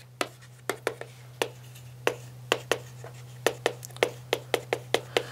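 Chalk being written on a chalkboard: a string of sharp, irregular clicks and short scratches, a few each second, as each stroke strikes the board, over a steady low hum.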